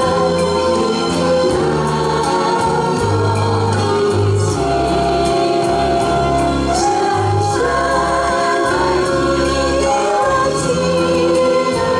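A group of amateur singers singing together in chorus, with instrumental accompaniment and a bass line underneath.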